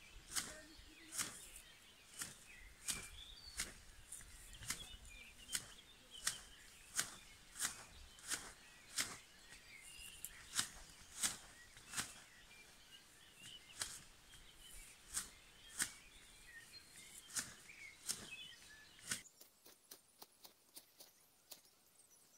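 Hand-held tea-plucking shears snipping tea shoots, one sharp click about every three-quarters of a second, with faint birdsong behind. Near the end the snips become fainter and quicker.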